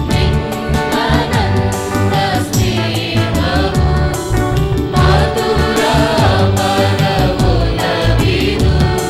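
Church choir singing a communion hymn over instrumental accompaniment with a steady, repeating bass.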